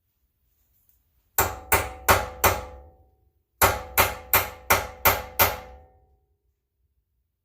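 Hammer blows on metal in two quick runs, four strikes and then six, each ringing briefly. The blows are knocking out the staked indentation on the front axle nut so that the nut can be turned.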